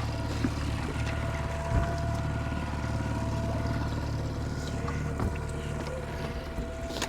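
Fishing boat's motor running steadily at trolling speed: a constant low hum with a steady whine above it, and a few faint clicks and knocks on the boat.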